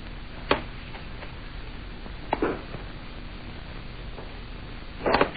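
Steady hiss and hum of an old film soundtrack, broken by a few sharp thumps: one about half a second in, two close together around two and a half seconds, and a louder cluster near the end.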